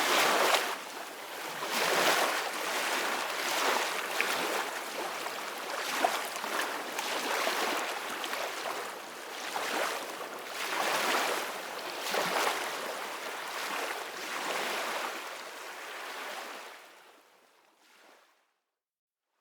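Ocean waves washing on a beach, a steady hiss of surf swelling and falling back every couple of seconds. The surf fades out near the end to a brief silence.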